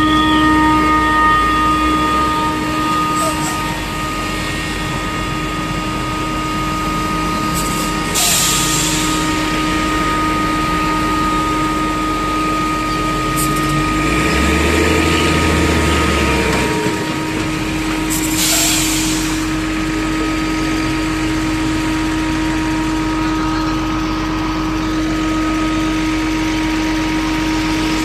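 Intercity bus horn stuck on, sounding one continuous steady tone over the bus engine idling, because the horn has short-circuited. Two short hisses of air come about 8 and 18 seconds in.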